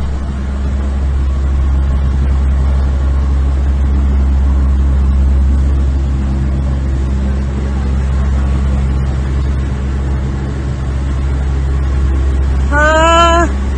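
Large farm tractor's diesel engine running steadily under load as it tows a heavy armoured missile vehicle past, a deep even drone. A person calls out briefly near the end.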